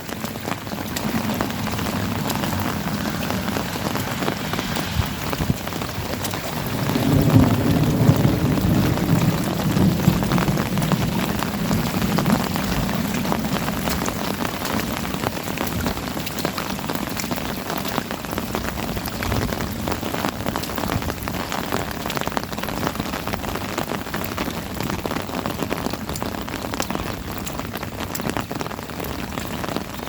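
Steady heavy rain pattering, with a low rolling rumble of thunder that swells about seven seconds in and fades away over the next several seconds.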